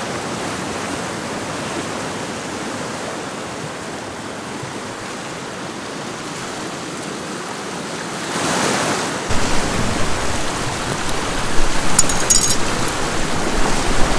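Sea washing against the rocks, a steady rushing noise. From about eight seconds in it gets louder and uneven, with a low rumble and a few sharp clicks near the end.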